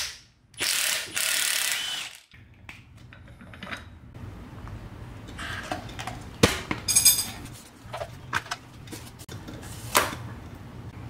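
Impact wrench firing in one burst of about a second and a half, spinning the 21 mm nut off the top of a strut's shock shaft. Light clicks and knocks of metal parts being handled follow.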